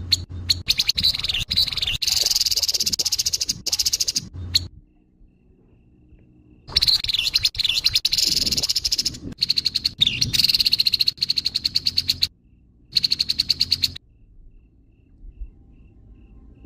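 Grey-headed babbler giving harsh, rapid rattling chatter calls in three bursts. Two are long and one is short, with brief pauses between them.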